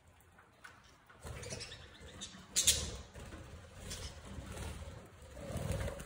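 Budgie wings flapping in uneven flurries, with a sharp click about two and a half seconds in.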